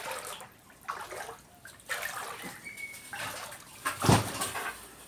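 Floodwater splashing in a series of bursts about a second apart, with a heavier splash and thump about four seconds in.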